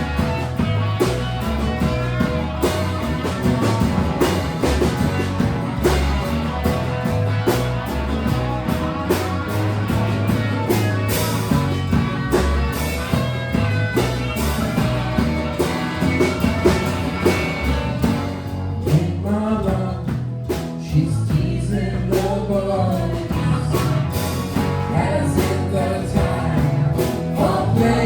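A live band playing a song: a full mix of drums, bass and melody instruments, with singing in it, most clearly in the later part.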